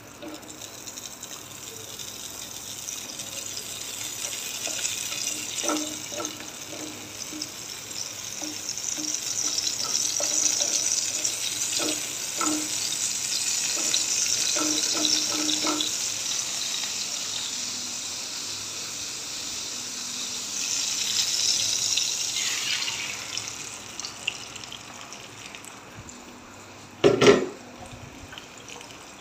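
Butter sizzling as it melts in a hot frying pan, the hiss building, then swelling and fading, with a few light taps of a plastic spatula against the pan. A sharp knock comes near the end.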